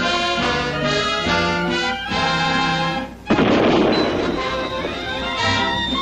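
Cartoon orchestral score with brass. About three seconds in, a sudden loud blast, a bang with a noisy rush that dies away over a couple of seconds, cuts across the music.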